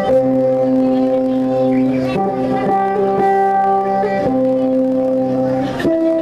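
Dance music on a plucked string instrument of the Dayak sape type, playing a slow melody of long held notes over a steady drone, with the note changing every second or two.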